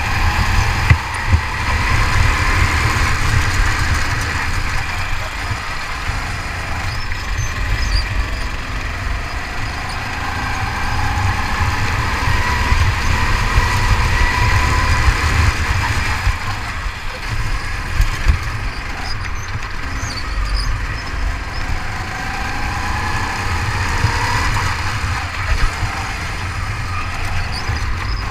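Go-kart engine heard from the driver's seat while lapping a track, its note rising as it accelerates and dropping back off several times, over a steady low rumble.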